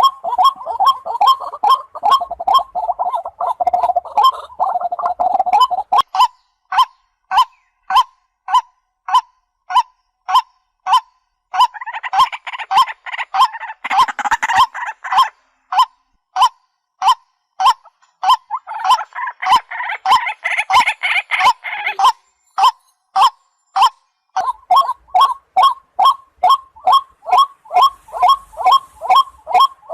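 Waterhen calling: a long run of loud, evenly repeated single notes, about two a second, packed closer together near the start and near the end. Twice, about a third and two thirds of the way through, the calling turns into a few seconds of rougher, overlapping chatter.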